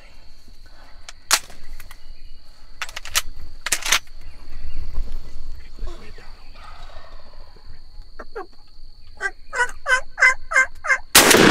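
Wild turkey calling in a quick run of about seven notes, cut off by a single loud 20-gauge shotgun blast that rings out and decays. A steady high insect drone runs underneath, with a few sharp clicks early on.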